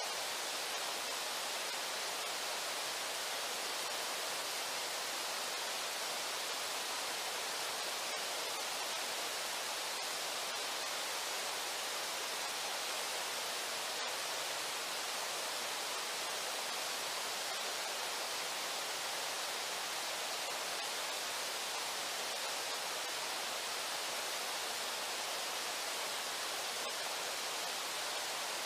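Steady rushing of river water, an even hiss with no change in level.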